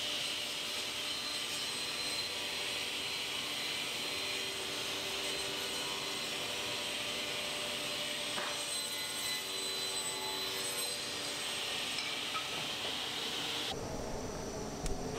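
Workshop machinery running with a steady airy hiss. Near the end the sound changes abruptly, and there is a brief knock.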